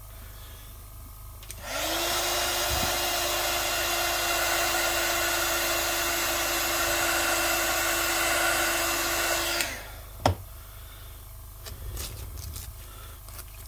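A hand-held hot-air blower switched on, spinning up to a steady blowing hiss with a constant hum, drying freshly airbrushed paint on a masked styrene panel; it runs about eight seconds and is switched off, followed by a single sharp click and then masking tape being peeled near the end.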